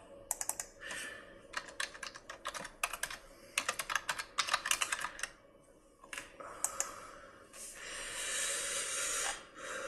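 Typing on a computer keyboard: quick runs of keystrokes, a password being entered again after a failed login. A soft, steady rushing noise follows for the last couple of seconds.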